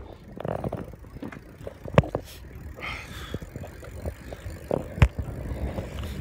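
Low rumble of movement and handling noise on a handheld phone microphone, with two sharp knocks about three seconds apart.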